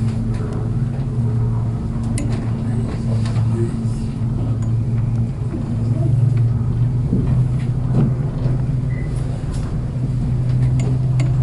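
Aerial tram cabin riding up its cable: a steady low hum and rumble that holds throughout, with a few faint clicks.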